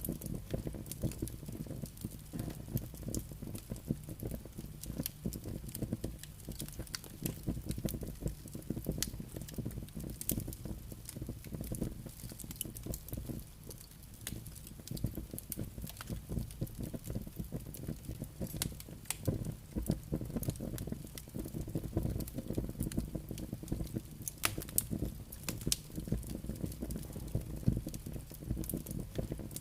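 Campfire crackling, with frequent sharp snaps and pops scattered irregularly over a steady low rumble.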